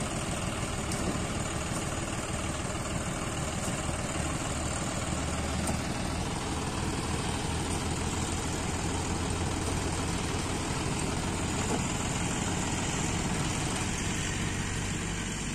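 John Deere tractor's diesel engine idling steadily.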